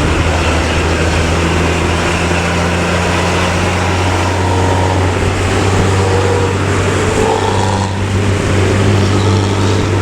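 Large diesel bus engine running steadily at highway speed, a deep even drone mixed with road and traffic noise.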